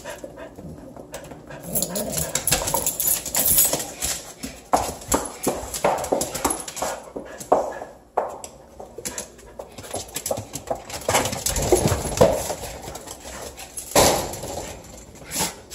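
Several dogs whimpering excitedly at a door, with many short clicks and scrabbles as they shift about on a tile floor, and a louder burst of noise near the end.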